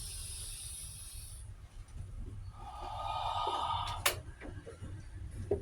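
A person breathing out hard: a hissing breath in the first second and a longer, stronger rush of air about three seconds in. A sharp click comes just after it, over a low rumble.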